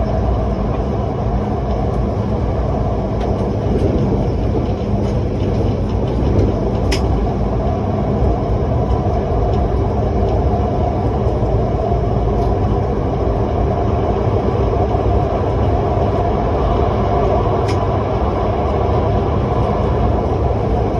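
SRT Red Line electric commuter train running, a steady rolling rumble with a couple of faint clicks.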